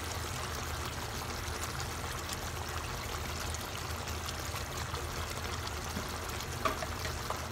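Fish curry simmering in a frying pan: a steady bubbling hiss over a low, even hum, with a couple of light clicks near the end.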